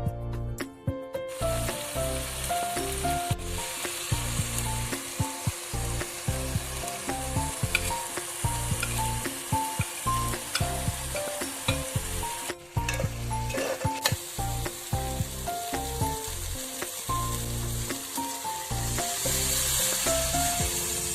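Food frying in hot oil in a pan, sizzling steadily with small clicks of stirring. The sizzle starts about a second in and grows louder near the end, over a light background melody.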